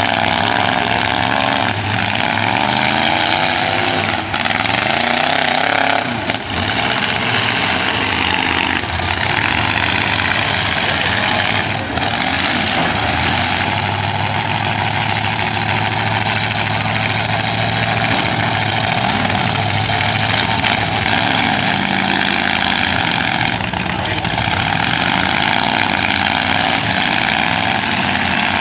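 Demolition derby cars' engines running and revving, their pitch rising and falling throughout.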